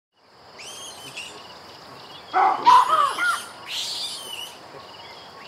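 A baboon calling, a loud run of barking calls about two and a half seconds in, over a wild outdoor background of birds chirping and a steady high tone.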